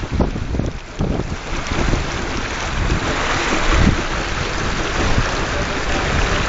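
Wind buffeting the microphone over the rush and splash of water along the hull of a Puddle Duck Racer, a small sailboat, sailing fast. The noise dips briefly about a second in.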